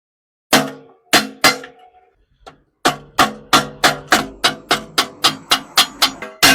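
Hammer blows on an aluminium pot, each strike ringing briefly: three separate blows, then from about three seconds in a steady run of quick strikes, about three a second.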